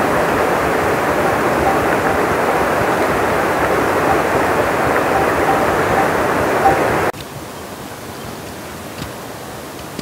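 Steady rushing noise like running water, cutting off abruptly about seven seconds in.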